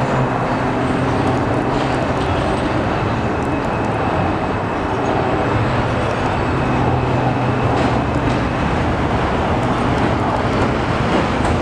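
New York City subway train approaching along an elevated steel structure: a steady, loud rumble of wheels and motors, with a faint steady hum underneath.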